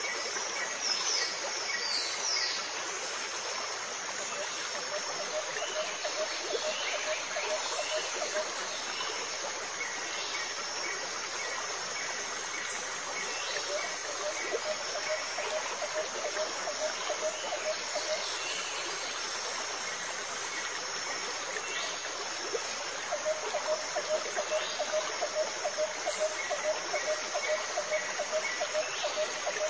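A steady rushing hiss like running water. Over it, a rhythmic chirping call repeats about three to four times a second, in stretches; it is loudest near the end.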